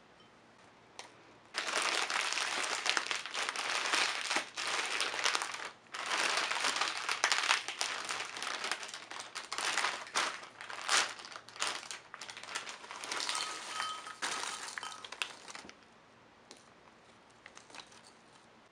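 A plastic snack packet crinkling loudly in irregular spells as it is gripped, pulled and squeezed in a struggle to open it. The crinkling starts about a second and a half in and stops a few seconds before the end.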